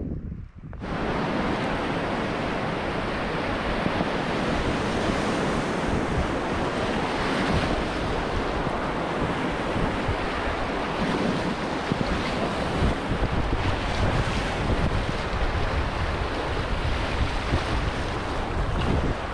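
Rushing whitewater of a river rapid heard from a packraft running it: a loud, steady rush of churning water that starts suddenly about a second in.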